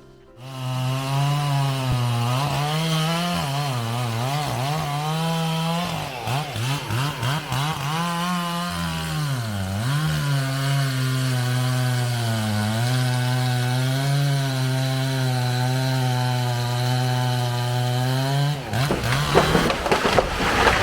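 A two-stroke chainsaw cuts through the trunk of a large beech tree, its engine note dipping repeatedly as it bogs down in the cut. Near the end the saw stops and a loud crackling, rushing crash follows as the tree comes down.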